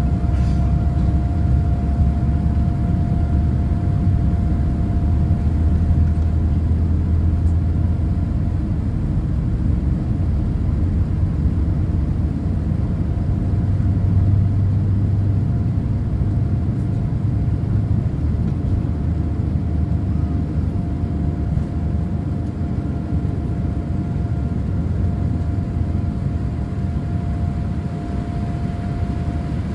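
Boeing 787-8 airliner heard from inside the cabin during takeoff: a loud, steady low rumble of the engines at takeoff power and the wheels on the runway, with a thin steady whine over it. The rumble eases a little about two-thirds of the way through as the aircraft lifts off and climbs.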